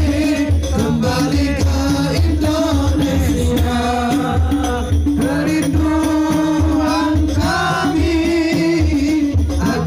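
Man singing a devotional syair (Islamic sung poem) through a loud PA system, his voice sliding between held notes, backed by regular low drum beats and a steady sustained accompaniment tone.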